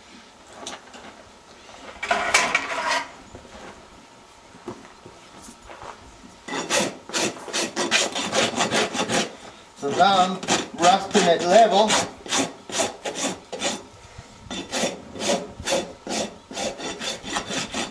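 Farrier's rasp filing a horse's hoof in runs of quick back-and-forth strokes, several a second, with pauses between the runs. A wavering squeak comes up in the middle.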